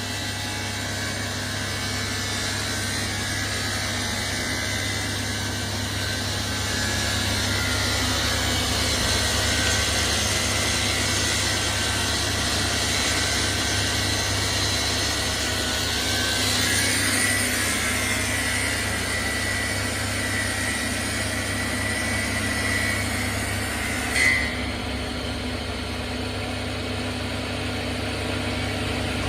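Multi-blade rip saw with an 11 kW electric motor running under a steady hum, its blades hissing as boards go through on the automatic feed. A high whine joins partway through, and a sharp knock comes about five seconds before the end, after which the hiss drops away.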